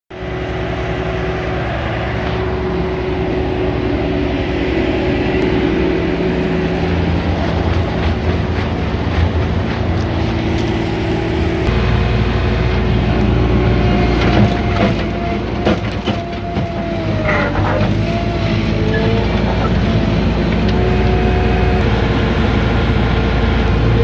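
Bobcat S300 skid-steer loader's diesel engine running steadily. About halfway through the low rumble gets stronger, a few knocks come in, and a wavering whine sounds over the engine.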